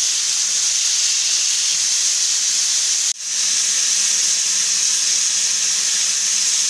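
Stainless steel stovetop pressure cooker whistling: a loud, steady hiss of steam jetting from its weight valve, broken for an instant about three seconds in. This is one of the whistles counted to time the stock, the sign that the cooker has come up to pressure.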